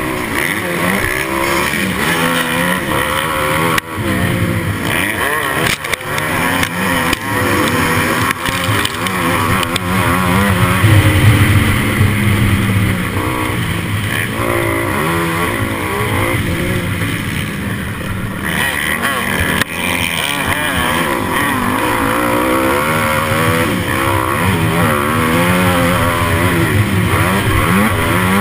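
Motocross bike engine revving up and down as the rider works the throttle and gears, with short drops when the throttle is cut. Wind rushes over the helmet-mounted microphone.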